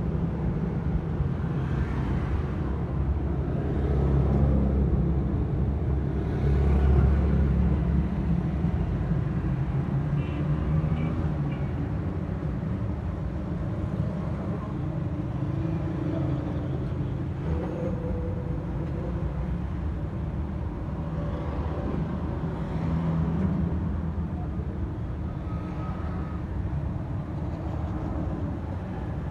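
Busy street and market background noise, mainly a steady low rumble of passing traffic that swells louder briefly a few times.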